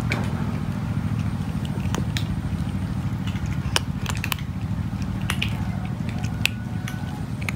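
Cat crunching dry kibble: irregular sharp crackles, a few a second, as the pellets break between its teeth, over a steady low rumble.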